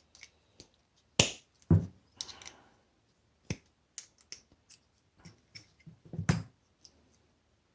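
Sharp clicks and knocks of a small plastic part from a washing machine motor being handled and pried at, with a brief scrape; the two loudest knocks come a little over a second in, half a second apart, and another strong one near the end.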